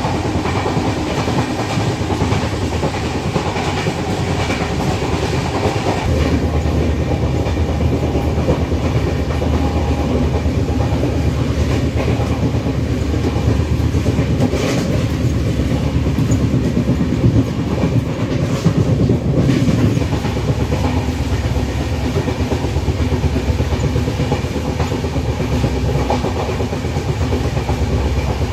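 A passenger train coach running at speed, heard from inside the coach: a steady rumble with the clickety-clack of the wheels over the rail joints, a little louder about halfway through.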